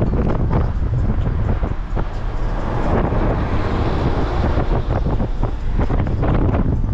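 Steady road noise of a moving car, a low rumble with wind buffeting the microphone and scattered small knocks.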